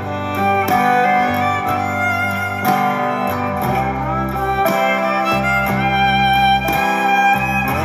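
Instrumental background music: a melody over a bass line that moves in steps, playing throughout.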